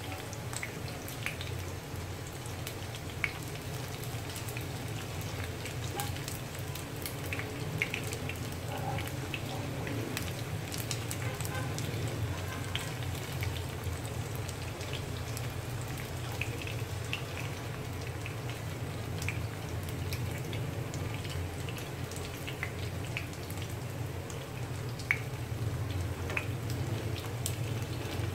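Tofu cubes frying in shallow oil in a nonstick pan: steady sizzling with scattered pops and crackles, and a few sharper knocks as wooden spatulas turn the pieces. A steady low hum runs underneath.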